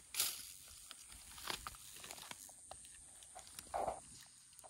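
Rustling and crunching in dry grass and leaf litter, with small clicks and knocks, as a crouching hunter shifts position and handles a compound bow. It comes in a few louder spells, the last a short breathy hiss near the end.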